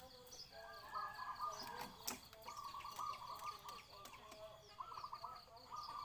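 Caged birds calling, a sooty-headed bulbul (kutilang) among them: short trilled phrases of quick pulses, over and over, with scattered high chirps above them.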